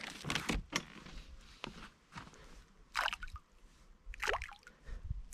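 Rustling as a bait bag is handled, then loose sweetcorn thrown by hand pattering onto the lake surface in two short splashy bursts, about three and four seconds in.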